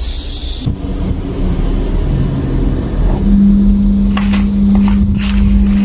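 Air conditioner starting up after being switched on: a steady low rumble, then a steady hum that sets in about three seconds in as the compressor runs, with a couple of light clicks. The unit is running on low supply voltage, about 130 V.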